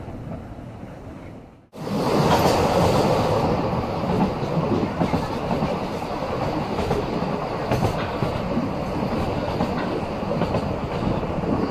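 Narrow-gauge steam train of the Vale of Rheidol Railway heard from an open carriage window, wheels clattering over the rail joints. The sound briefly drops out about two seconds in and comes back much louder as the train runs at speed through woodland.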